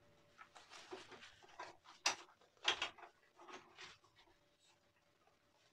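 Faint wet swishes of a PAA Amber Aerolite shaving brush working lather on a face, a run of short strokes with two louder ones about two seconds in.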